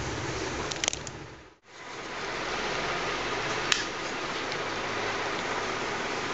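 Steady hiss of indoor room noise, with a few faint clicks about a second in, a brief drop almost to silence soon after, and one sharp tick near the middle.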